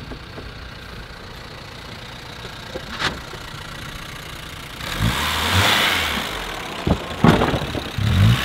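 Small VW Polo hatchback's engine running near idle, then revving harder from about five seconds in as the car pulls away over loose gravel, the tyres crunching and hissing on the stones. A few sharp knocks sound near the end.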